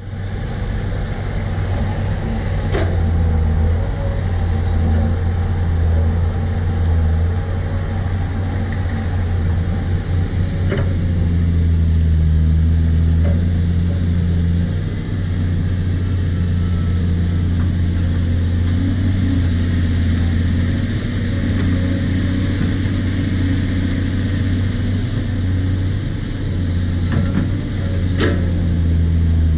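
Caterpillar 320D L hydraulic excavator's diesel engine running under working load, its low note shifting as the arm and bucket dig. A few faint knocks come through, about three seconds in, near eleven seconds, and near the end.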